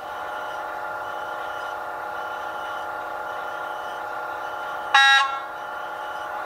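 Sound decoder of a PIKO model S499.02 electric locomotive playing its running sound through the model's small speaker: a steady electric hum made of several held tones. About five seconds in, a short, loud horn toot.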